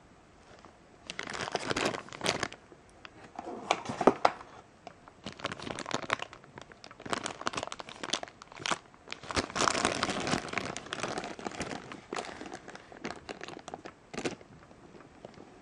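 Clear plastic polybags holding action-figure parts crinkling as they are handled and squeezed, in irregular bursts starting about a second in and stopping near the end.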